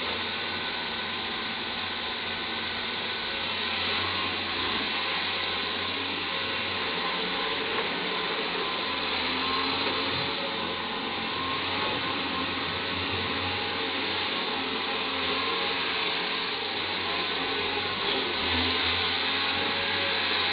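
Caterpillar 320D hydraulic excavator's diesel engine and hydraulics running steadily under load as it swings and digs coal.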